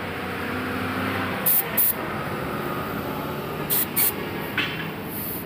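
Compressed air hissing in short spurts at a water-ballasted tractor rear tyre's valve as the air-hose chuck is pressed on: two pairs of quick hisses about two seconds apart, over a steady background hum.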